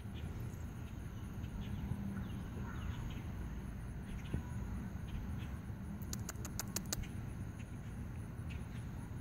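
Outdoor ambience: a steady low rumble on the microphone with faint, scattered short chirps, and a quick run of about eight sharp clicks about six seconds in.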